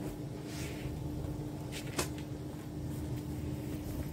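Soft rustling of clothes being handled, over a steady low hum, with a single sharp click about two seconds in.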